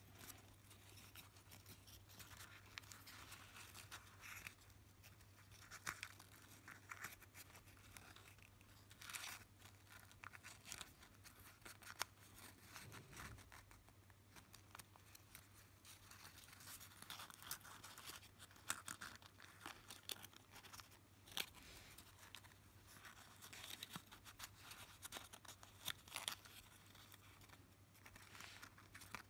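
Folded paper origami units rustling and crinkling faintly in the hands as they are fitted together, in short intermittent bursts with a few sharp clicks.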